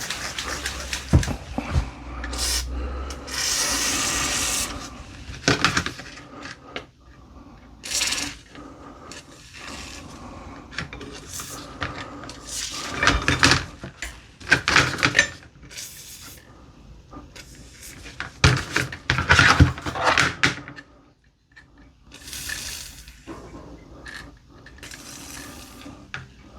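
Short hissing bursts of a WD-40 aerosol can being sprayed onto rusted steel tools, the longest about three seconds in. Between them come knocks and clatter as the metal tools are handled and set down.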